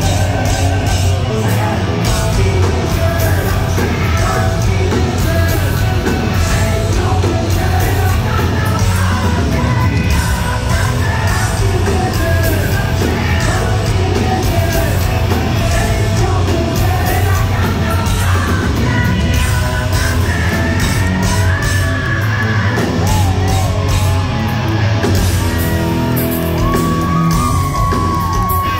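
Live hard rock band playing loudly, with distorted guitars, drums and a singer shouting and singing over them, heard from within the audience. Near the end a long high note is held steady for about two seconds.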